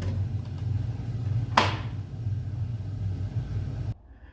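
Viessmann gas boiler's burner running with a steady low hum as it reheats freshly topped-up heating water. There is one sharp click about one and a half seconds in, and the hum cuts off suddenly near the end.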